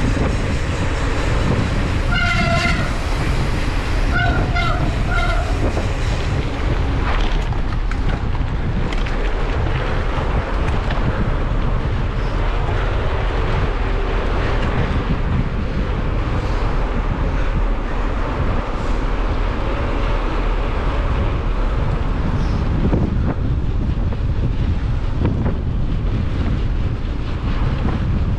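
Wind buffeting the microphone and a steady rumble of tyres and rattle from a hardtail mountain bike being ridden on a trail. Short, high whistle-like tones come about two seconds in and again around four to five seconds.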